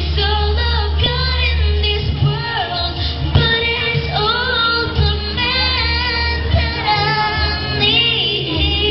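A girl singing into a microphone over amplified musical accompaniment. The sung notes waver and glide while the accompaniment's low bass holds steady underneath.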